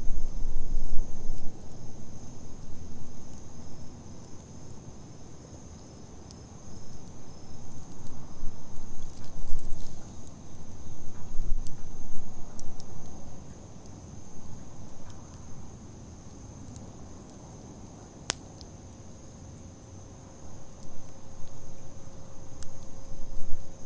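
Wood campfire burning with scattered pops and crackles, one sharp pop about eighteen seconds in, and a low rushing that swells and fades several times. Behind it, a steady high chirring of insects.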